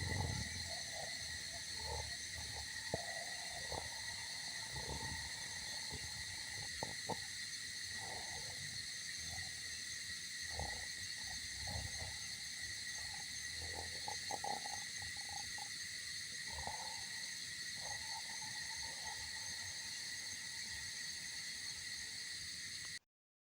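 Coffee machine running as it brews: a steady high whine with several fixed tones, over irregular gurgling and sputtering. It cuts off suddenly near the end.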